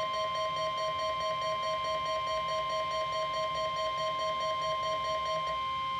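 NOAA Weather Radio 1050 Hz warning alarm tone: a single steady high tone sent as part of the weekly test, heard through a weather radio receiver. Under it a lower tone pulses several times a second and stops shortly before the end.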